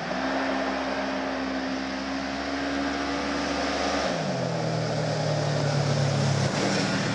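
Polaris RZR XP 900's twin-cylinder engine through its stock exhaust, held at high revs during a burnout for about four seconds. It then drops to a lower, steady engine speed.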